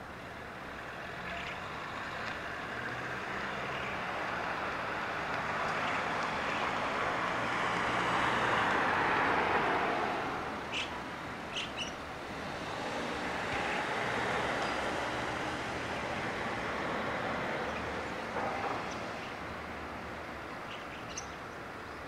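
Road traffic: one vehicle passing, building to its loudest about nine seconds in and then fading, followed by a second, quieter pass. A few short high chirps come just as the first fades.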